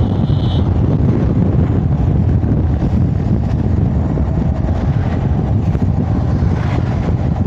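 Steady wind rumble buffeting a clip-on lapel microphone, with the road and engine noise of a moving vehicle underneath, as heard when riding along an open road.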